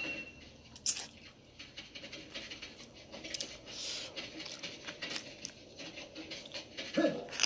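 Close-up eating sounds: a plastic fork clicking against the food container, with chewing of oxtail between bites. Scattered sharp clicks, the loudest about a second in.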